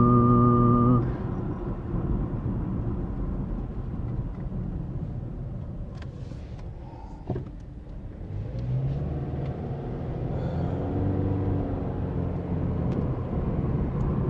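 Steady road and engine noise inside a car's cabin while driving on a highway. A loud, steady low tone is held for about the first second, and a single sharp knock comes about seven seconds in.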